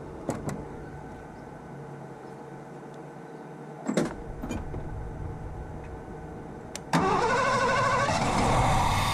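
A few clicks and a knock, then about seven seconds in the starter cranks the Ford 302 V8 with its newly fitted carburetor, and the engine catches just before the end. This is a start attempt with the ignition timing just changed by rotating the distributor, on an engine that fires but has not been staying running.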